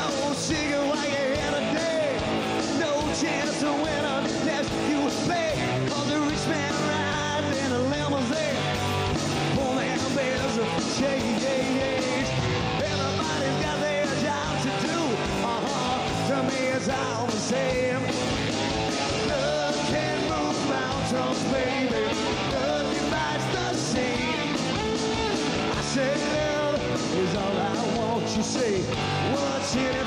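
Rock band playing live: electric guitars through Marshall amps, bass and drums, with sung vocals over the top, steady and loud.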